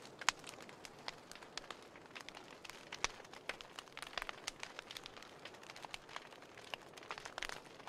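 Paper pages burning, crackling with many small sharp pops over a soft hiss; a louder pop comes about a third of a second in and another about three seconds in.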